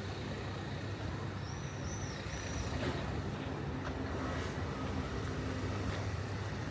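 A motor vehicle's engine running steadily in the street, a low, even hum. Three short high chirps come close together about two seconds in.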